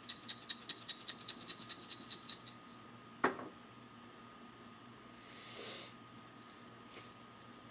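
Pepper grinder being twisted, a fast run of crunchy clicks, about eight a second, for roughly two and a half seconds. A single sharp sound about three seconds in and a brief breathy hiss later follow.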